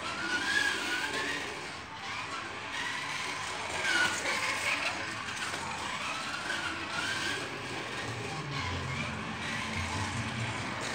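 Hot Wheels AI toy race car running laps, its whining engine sound rising and falling in pitch as it speeds up and slows through the turns.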